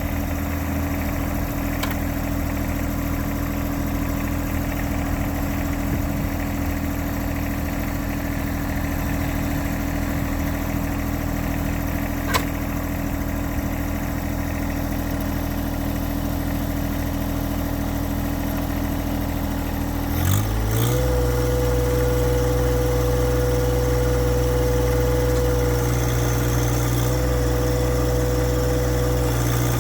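John Deere 1025R's Yanmar three-cylinder diesel engine idling steadily. About two-thirds of the way in, the engine speed rises quickly and then holds at a higher steady speed. There is one brief click near the middle.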